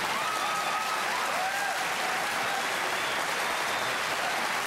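Studio audience applauding, a steady dense wash of clapping that holds at an even level.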